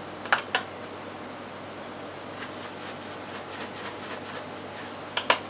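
Chicken and tomatoes simmering in an oiled frying pan: a steady faint sizzle with scattered small pops. Two sharp clicks come about a third and half a second in, and two more near the end, as a herb shaker is tapped and shaken over the pan.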